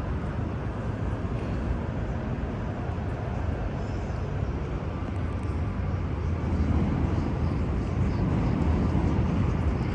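Outdoor city background noise: a steady low rumble without distinct events, growing a little louder about six and a half seconds in.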